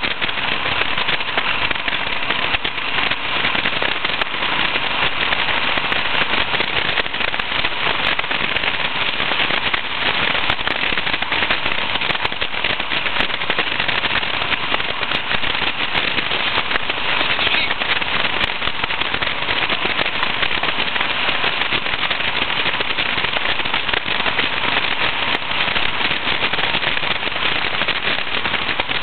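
Steady crackling rush of wind and road noise on the microphone of an open-topped Westfield SE sports car while driving along at speed, with no engine note standing out.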